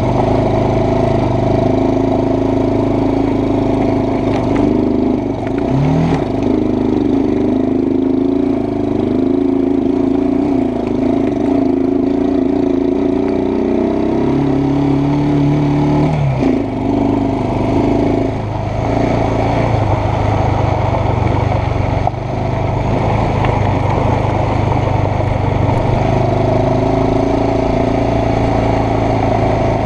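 ATV engine running while the quad is ridden along a gravel trail, its pitch shifting up and down a few times with the throttle.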